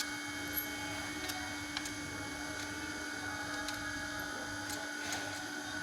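Occasional light clicks and taps of tools on metal, spaced irregularly about a second apart, over a steady background hum.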